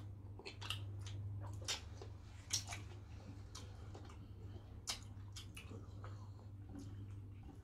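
Eating by hand: scattered short wet clicks and smacks of chewing, and of fingers squishing starch and fish in pepper soup, over a steady low hum.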